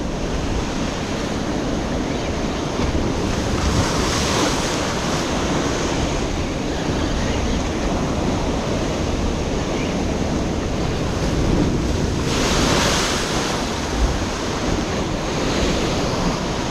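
Ocean surf washing over shore rocks, with wind buffeting the microphone as a steady low rumble. Two stronger wave surges swell up, one about four seconds in and one about twelve seconds in.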